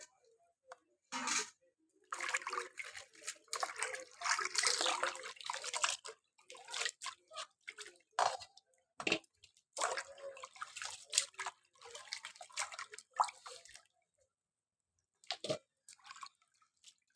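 Hands swishing and lifting cauliflower florets in a plastic tub of water: splashing and dripping in irregular bursts. Near the end the water stops and there are a few short knocks.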